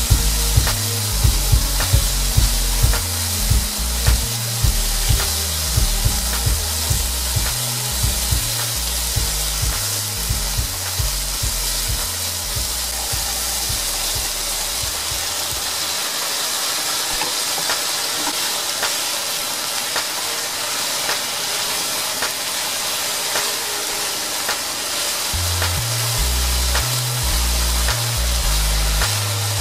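Pork and maitake mushrooms stir-frying in a hot non-stick frying pan: a steady sizzle, with low thumps about twice a second for the first half and again near the end. Maitake mushrooms are tipped in about halfway.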